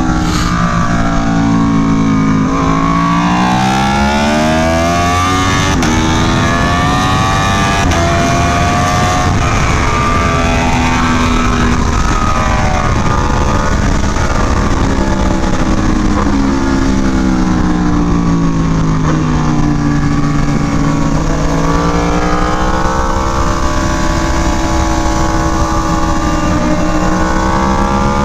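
Aprilia Tuono V4 1100 Factory's V4 engine through an SC Project CR-T exhaust, heard on board at track pace. The engine note rises and falls as the revs climb under acceleration and drop into corners, over a steady rush of wind noise.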